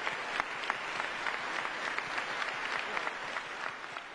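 Audience applause: many hands clapping at a steady level.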